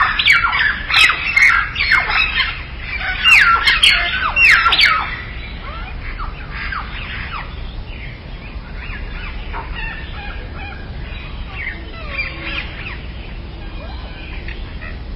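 Birds chirping in quick, overlapping calls, many of them short notes sliding down in pitch. The calling is loud for about the first five seconds, then goes on more faintly.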